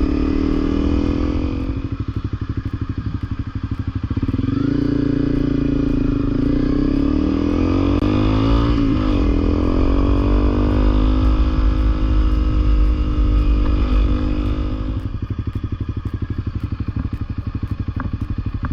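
Honda CRF250L's single-cylinder engine running on the move. Its note drops and picks up several times as the throttle is worked, then eases off about fifteen seconds in.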